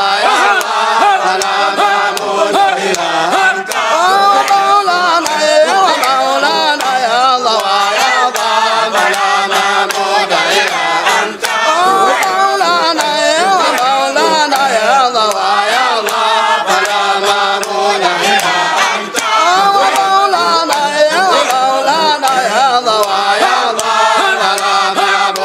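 Group of men chanting dhikr together, many voices rising and falling in a continuous loud chant.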